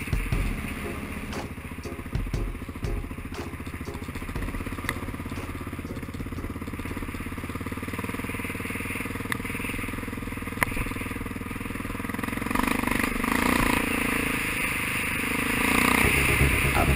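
Off-road motorcycle engine running as it rides along a bumpy dirt track, heard from the bike-mounted camera, with knocks and clatter over the rough ground in the first few seconds. The engine gets louder from about twelve seconds in.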